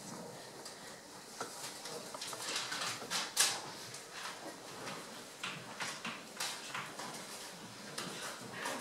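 Paper being handled and written on: a run of short scratchy rustles and scrapes, with one sharper rustle about three and a half seconds in.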